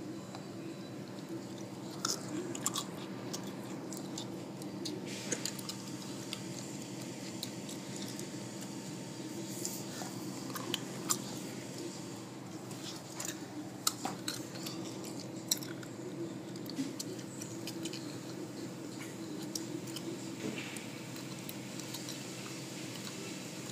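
Automatic soft-cloth car wash heard from inside the car: a steady low machinery hum with scattered, irregular taps and crackles of water and cloth strips hitting the car body.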